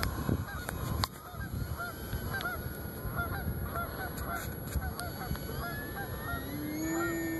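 Many short rising-and-falling bird calls, repeated irregularly several times a second. About six seconds in, a steady whine comes in from the electric RC plane's AXI 2826/10 brushless motor and propeller.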